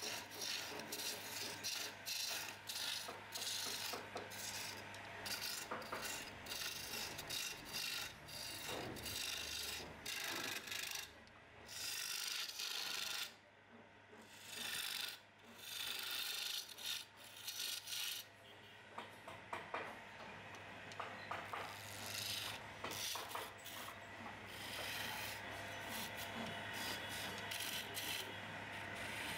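Hand-held turning tool cutting a spinning wooden table-leg blank on a wood lathe: a run of short cutting strokes that stop and start, with brief pauses near the middle. A steady low hum from the lathe runs underneath.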